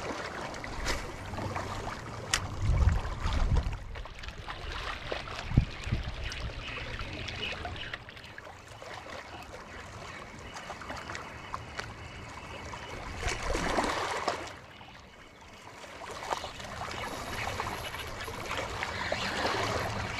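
Water moving and trickling with a steady rushing noise, and one sharp knock about five and a half seconds in.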